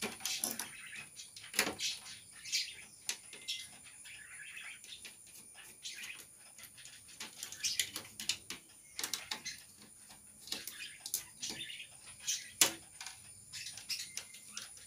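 Small screwdriver working screws out of a satellite receiver's power supply board and metal chassis: irregular light clicks and taps of metal on metal, one sharper tap near the end. Birds chirp in the background.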